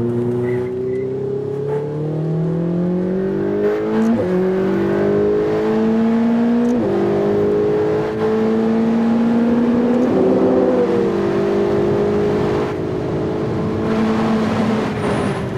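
Ferrari 488 GTB's twin-turbo V8 accelerating hard. Its pitch climbs through each gear and drops sharply at each quick paddle upshift of the 7-speed dual-clutch gearbox, about 4, 7 and 10 seconds in. It then holds fairly steady and falls away near the end as the car comes off the throttle.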